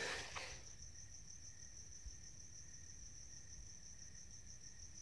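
Faint, steady chorus of night insects such as crickets, an unbroken high-pitched trill.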